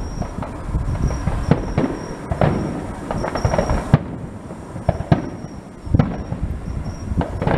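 Aerial firework shells bursting: a rapid string of sharp bangs, each followed by a rolling, echoing rumble, with the loudest reports about four, five, six and seven and a half seconds in.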